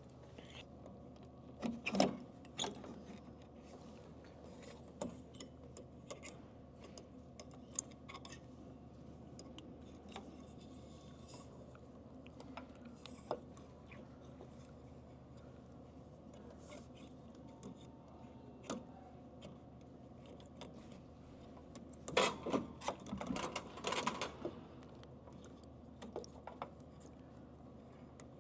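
Scattered small clicks, knocks and rattles of hands working inside a snack vending machine while its light bulb is changed, with bursts of clatter about two seconds in and again from about 22 to 24 seconds; a low steady hum runs underneath.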